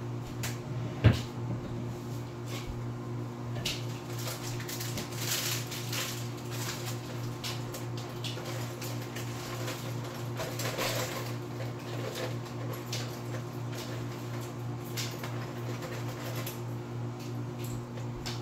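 Scattered clicks, knocks and rustles of objects being handled and moved about off-camera, with one sharp knock about a second in. Under them runs a steady low hum.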